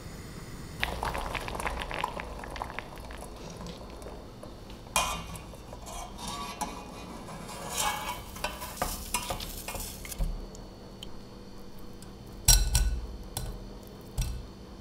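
Water bubbling around potato chunks boiling in a stainless steel pot. Then a wire spider skimmer clinks and scrapes in the pot, lifting the boiled chunks out with water splashing off. Near the end there is a sharp knock and a smaller tap as the chunks are tipped into a metal mesh sieve.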